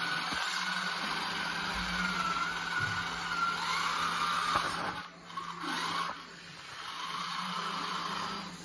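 Small electric drive motors and gears of a homemade radio-controlled model tractor whining, the pitch wavering up and down as its speed changes. The whine drops off about five seconds in, then comes back with rising and falling glides.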